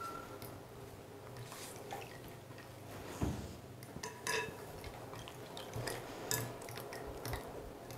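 Metal fork stirring a runny mix of eggs, curd and milk in a glass bowl: faint, irregular clinks of the fork against the glass, with wet stirring.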